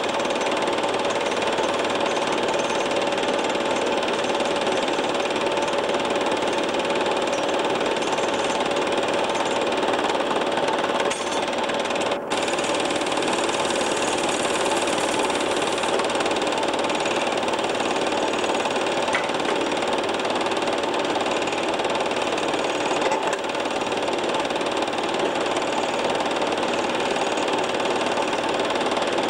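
Film projector running: a steady mechanical whirr with a constant hum, dipping briefly about twelve seconds in.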